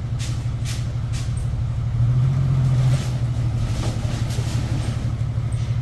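Truck engine idling with a steady low hum that swells briefly about two seconds in, while long steel reinforcing bars clink and scrape as they are slid off the truck bed onto the ground.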